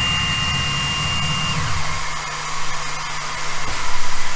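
Stepper motors of a Genmitsu Jinsoku LC40 laser engraver whine and buzz as the laser head homes. The whine glides down and stops about one and a half seconds in. The machine's fan then hums steadily, with a couple of knocks near the end.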